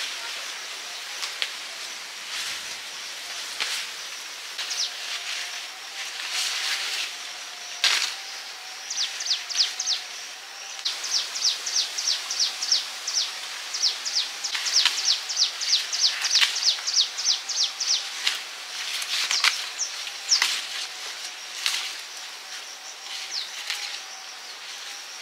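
Birds chirping in quick runs of short, high, downward-slurred notes, busiest through the middle, with a few sharp clicks over a steady outdoor background.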